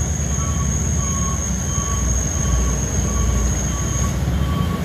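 Hino cargo truck's diesel engine running with a steady low rumble as the truck rolls down a wet road, with a steady high-pitched whine and a faint chirp repeating about three times a second over it.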